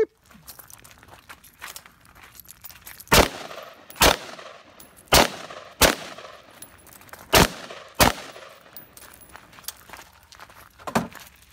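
Six shots from a Smith & Wesson M&P M2.0 9mm pistol, fired as three pairs with about a second between the first pair and well under a second within the later pairs. A fainter bang follows near the end.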